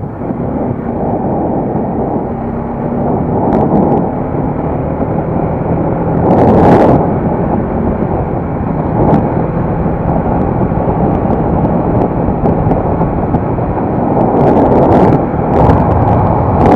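Motorcycle running at highway speed, with heavy wind rush on the camera's microphone. The rush swells louder about six to seven seconds in and again near the end.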